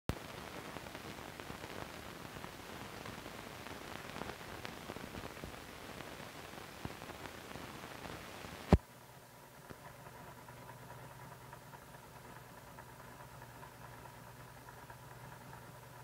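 Crackling hiss and scattered clicks from the soundtrack of an old 16mm film's leader, broken by one sharp, loud pop about nine seconds in; after it, a quieter hiss with a faint steady hum.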